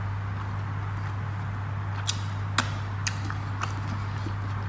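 Quiet eating sounds, with four sharp clicks about half a second apart midway, over a steady low hum.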